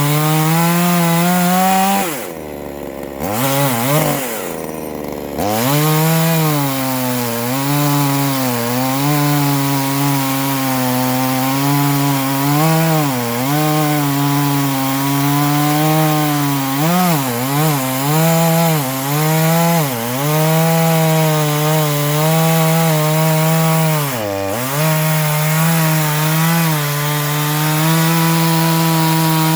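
Ported neo-tec NH841 two-stroke chainsaw running at full throttle cutting softwood, its pitch dipping as the chain bogs under load. About two seconds in it drops to idle, revs up once, and then goes back to full throttle. It drops briefly again near the end.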